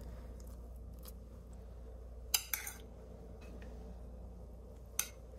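A few light clinks of metal utensils on a glass bowl and a plate as food is scooped and served, the sharpest about two seconds in and again near the end, over a faint low hum.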